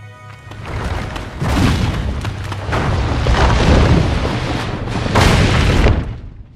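Cinematic rumbling and crashing of rock collapsing in a cave, with debris falling. It builds over a few seconds in heavy surges with sharp cracks and stops abruptly near the end.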